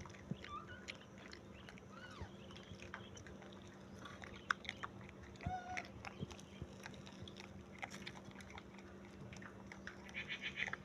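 Baby monkey giving a few short, faint squeaks now and then, among small clicks, over a steady low hum.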